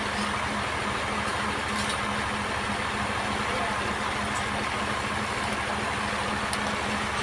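Sawmill machinery running steadily, an even engine-like hum with a constant low tone.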